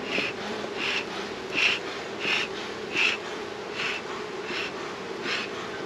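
A beekeeper's bellows smoker being pumped: short airy puffs in a steady rhythm, about eight of them, one every 0.7 seconds, over the steady hum of honey bees buzzing.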